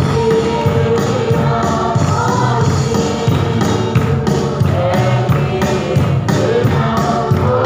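A congregation singing a hymn together as a group, over a steady beat.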